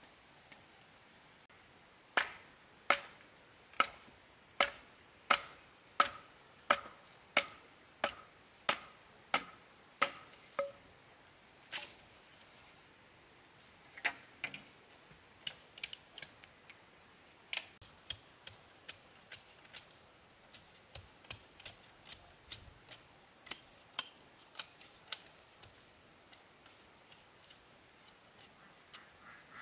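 Chopping with a blade on wood: a steady run of about a dozen sharp strokes, a little more than one a second, each with a short ringing note. After a pause it turns to lighter, irregular strikes, and faint quick clicks near the end.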